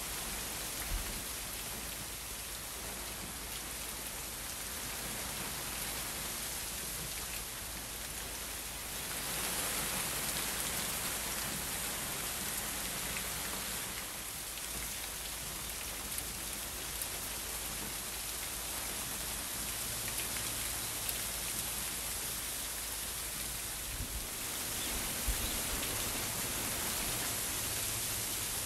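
Sleet, rain mixed with wet snow, falling steadily on garden shrubs, leaves and ground: an even hiss that grows a little louder twice, about a third of the way in and again near the end.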